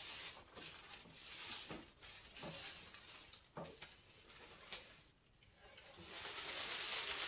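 Faint rustling of plastic protective sheeting with a few light knocks, about one a second, as a flat-screen TV lying on it is handled, growing louder again near the end.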